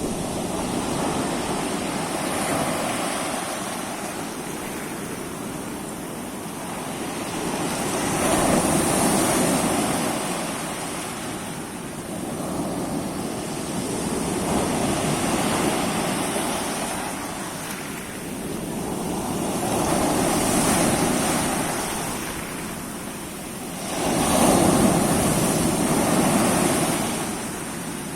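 Sea waves breaking on a shore, the wash swelling and ebbing about every five to six seconds, with the loudest wave coming in near the end.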